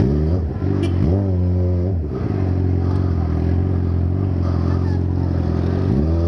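Motorcycle engine revving up and back down twice in quick succession, then running at a steady pitch for a few seconds before revving up again near the end.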